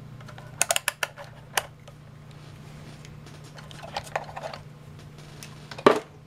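Rotary function switch of a Hioki DT4252 digital multimeter clicking through its detents as it is turned: a quick run of clicks about half a second in, another click a second later, softer clicks around the middle, then a louder knock near the end. A steady low hum sits underneath.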